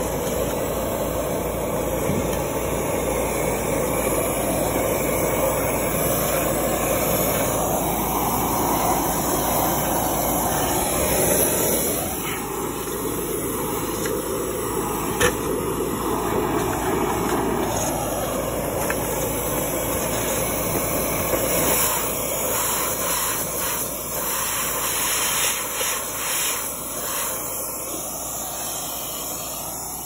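Steady rushing, hissing noise of air and cleaning equipment working through a rooftop dryer vent duct as lint is driven out of the vent cap. It eases a little about twelve seconds in.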